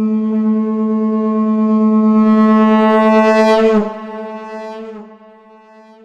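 Shankh (conch shell) blown in one long, steady note pitched at A. It grows brighter before breaking off about four seconds in, then rings on more faintly and fades away.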